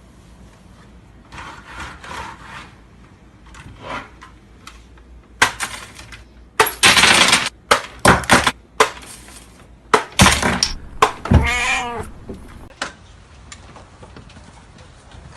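A run of knocks and clattering crashes, the loudest around the middle, followed about eleven seconds in by a short animal call with a wavering pitch.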